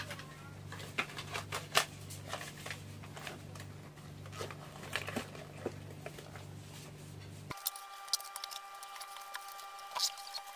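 Small clicks, knocks and rustles of makeup items, cases and pouches being picked up and put away, over a steady low hum. Near the end the hum drops out and a few faint steady high tones sound.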